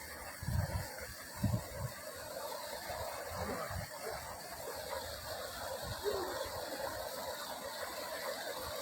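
Steady rushing of floodwater, with a few low thumps in the first couple of seconds.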